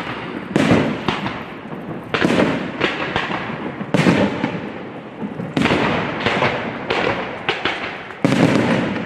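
Fireworks display: a run of loud bangs, about one a second and sometimes two close together, each trailing off in echo and crackle.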